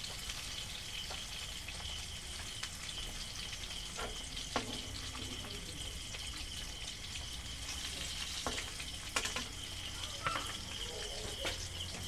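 Fish steaks frying in hot oil in a steel kadai: a steady sizzle, with a few clicks of a slotted steel spatula against the pan.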